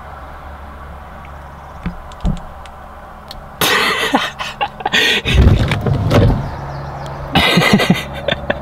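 Steady low hum of a car idling, heard from inside the cabin, with a few light clicks. About three and a half seconds in, loud close-up rustling and knocking breaks in, and again just before the end.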